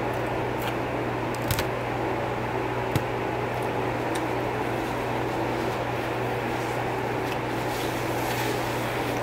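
Steady low mechanical hum of room equipment, with a few faint short clicks and crunches of chewing and handling fried food, and one sharper click about three seconds in.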